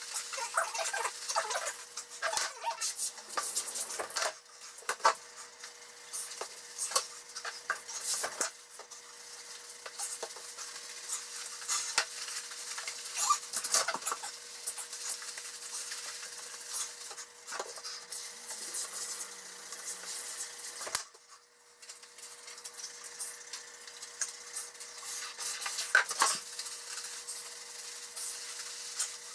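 Hands scrubbing shampoo lather through a wet, long-haired dog's coat: irregular squelching and crackling of foam and wet fur, with a faint steady hum underneath.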